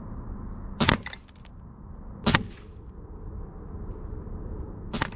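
Three sharp air rifle shots from a .22 Rainson Edge-X, the second about a second and a half after the first and the third about two and a half seconds later. Each is followed closely by a fainter tick, the pellet striking the target.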